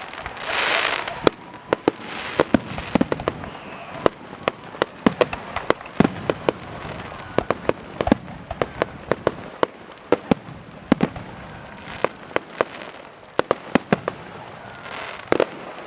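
Fireworks display: a rapid, irregular string of sharp bangs from bursting shells, with hissing swells about half a second in, around two and a half seconds in, and again near the end.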